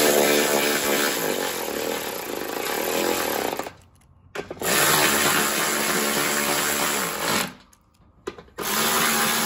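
Cordless electric ratchet whirring as it drives bolts into a mower deck's plastic belt cover. It runs in three stretches, stopping briefly at about four seconds and again near eight before starting up once more.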